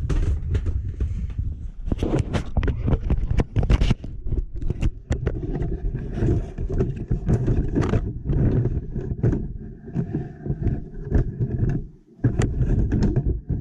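Handling noise from a camera being moved and mounted: irregular knocks, clicks and scraping over a heavy rumble, with a short lull about twelve seconds in.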